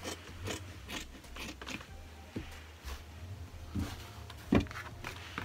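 Scissors snipping through fabric on a paper-covered table: a run of short, crisp snips, quicker at first and then more spaced out, with one louder knock a little before the end. A low steady hum sits underneath.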